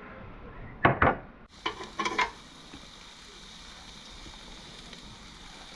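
Seasoned salmon pieces sizzling on a grill, with a few sharp metallic clicks of a utensil against the pan about a second in and again near the two-second mark.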